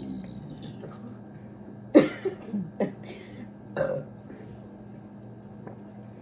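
A person burping after gulping fizzy soda: one loud burp about two seconds in, followed by a few shorter sounds and another burp nearly two seconds later.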